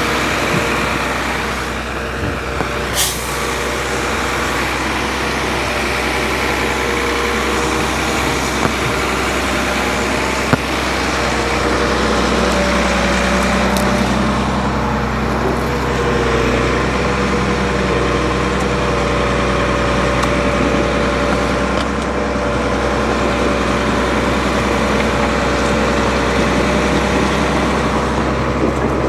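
Diesel engine of a three-axle Sisu off-road truck running steadily under load as the truck crawls over rough ground, its pitch wavering a little about halfway through, with a few sharp knocks from the chassis.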